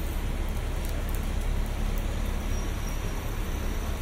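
Steady rain falling on a city street: an even hiss of rainfall over a low, constant rumble of traffic.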